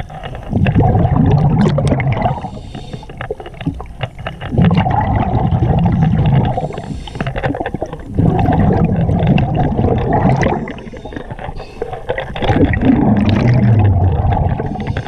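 A diver breathing on a regulator underwater: four long surges of exhaled bubbles rumbling past the microphone, with quieter pauses between breaths and small clicks throughout.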